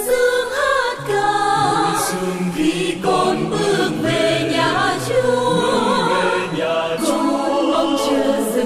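Background music: the instrumental-and-choir introduction of a Catholic hymn, a slow melody with sustained chords.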